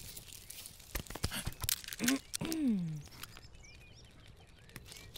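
Cartoon sound effects: a run of light clicks and taps about a second in, then a short rising vocal sound and a longer one that falls in pitch, from an animated character. Faint bird chirps follow.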